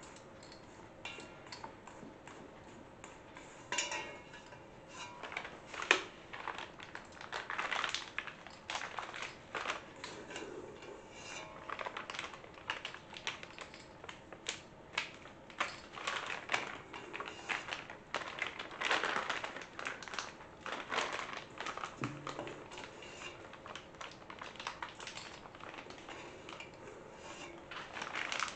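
Spatula scraping and knocking against a stainless steel mixing bowl as thick muffin batter is scooped out, in irregular strokes, with one sharp knock about six seconds in.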